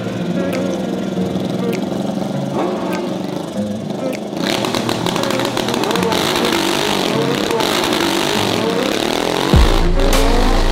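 Triumph Bonneville Bobber's parallel-twin engine running on the start line, then launching about four seconds in and accelerating hard, its pitch climbing and dropping back at each gear change, with wind rushing over the onboard microphone. Music cuts back in near the end.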